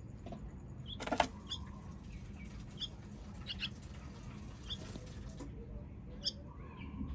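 Baby bird cheeping: short high peeps repeated about once a second, a few in quick pairs, with a brief louder rustle about a second in.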